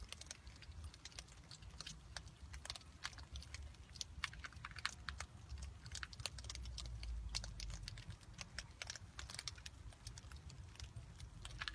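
Hedgehogs, a mother and her young, crunching and chewing dry kibble from a dish: a faint, quick, irregular patter of small crisp crunches.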